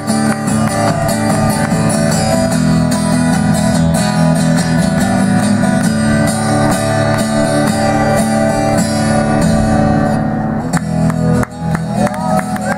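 Acoustic guitar strumming chords at the close of a song, played live through a PA. The chords stop about eleven seconds in, and audience cheering starts near the end.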